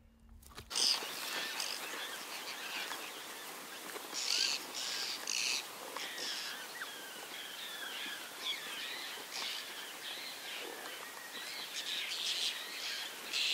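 Many bush birds chirping and calling, starting about a second in, with a few louder harsh calls in quick runs of three.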